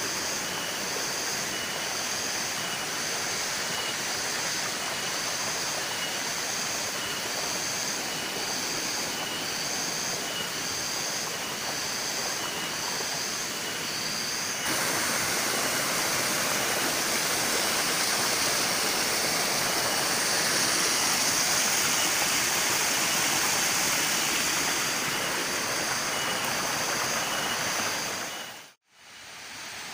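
Spring water trickling and splashing over rocks: a steady rushing hiss that steps up louder about halfway through and cuts out briefly near the end. Over the first half, a faint high call repeats about once a second.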